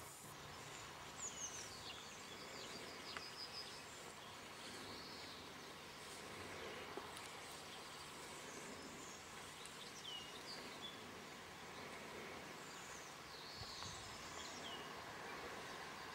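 Faint outdoor ambience: small birds chirping and whistling in short, falling calls, on and off throughout, over a steady background.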